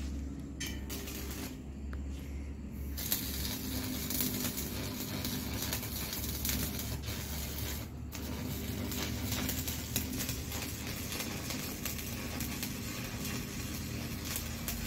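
Electric arc welding on an iron roof truss: a steady crackling hiss that starts about three seconds in, with a brief break near the middle, over a steady low hum.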